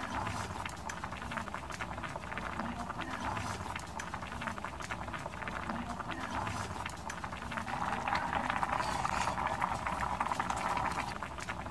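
Doenjang jjigae with tofu and river snails boiling hard in a pot: a dense, steady crackle of popping bubbles, growing louder about eight seconds in.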